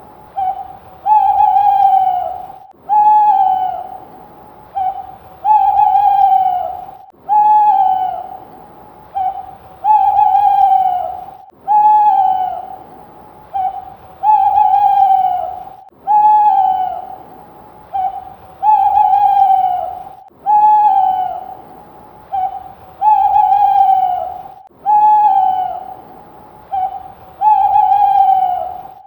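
Screech owl calling in a steady, regular series, about one call every two seconds. Each call is a held, whistle-like note that drops in pitch at the end, often with a short note just before it.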